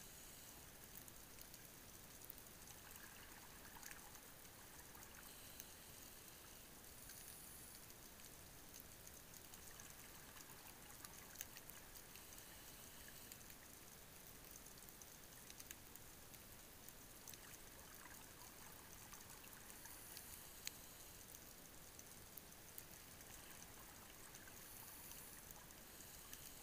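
Faint underwater ambience: a steady hiss with scattered faint clicks and crackles.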